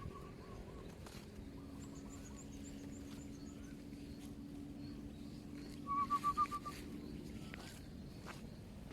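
Wild birds calling outdoors: a quick run of thin, high notes, then a short, fast trill of about six notes about six seconds in, over a faint steady low hum.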